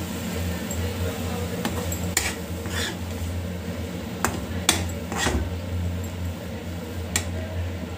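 Perforated steel ladle stirring thick cooked semolina in a metal kadhai, scraping and knocking against the pan with several sharp clinks between about two and seven seconds in, over a steady low hum.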